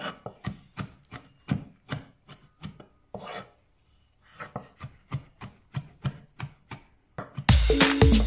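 Knife chopping garlic on a cutting board: quick, even strokes about three a second, with a short pause a little past the middle. Loud electronic music with a beat comes in near the end.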